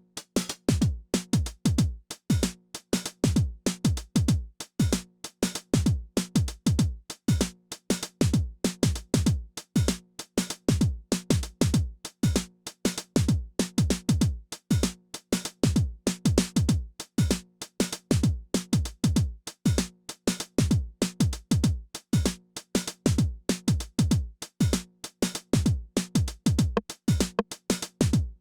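Behringer RD-9 analog drum machine, a TR-909 clone, playing a steady pattern: deep kicks that drop quickly in pitch, under a fast run of crisp hi-hat and snare hits.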